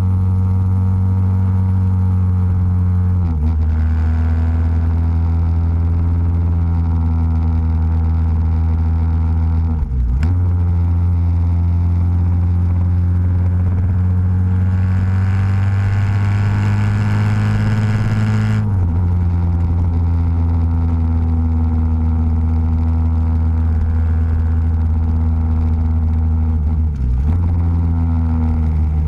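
Motorcycle engine at road speed, heard from the bike itself. It holds a steady pitch for stretches and pulls harder, rising in pitch, for a few seconds in the second half. There are a few brief dips and steps in pitch as the rider changes gear.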